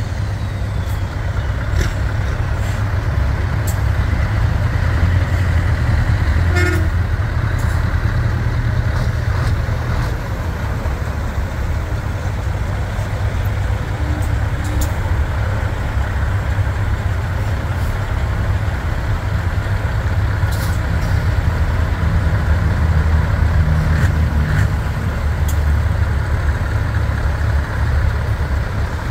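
Diesel engines of vintage trucks running at low speed as they roll in, a steady low rumble, with a brief horn toot.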